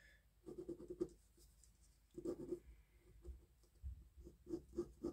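Mechanical pencil drawing on paper: faint scratchy strokes in a few bursts, ending in a run of quick short strokes.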